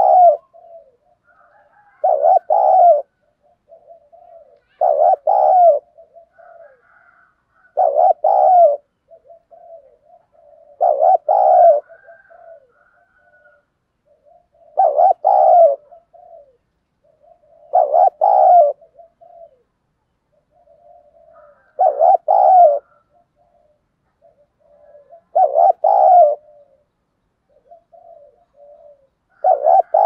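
Spotted dove cooing: a loud two-part coo phrase repeated about every three to four seconds, with softer short coo notes between. It is a caged decoy dove's calling, used to draw in wild doves.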